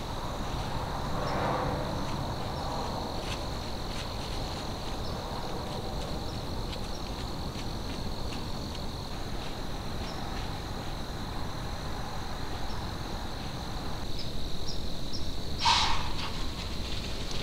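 Crickets chirping in a steady high-pitched chorus over a faint outdoor hiss, with one short, sharp louder sound near the end.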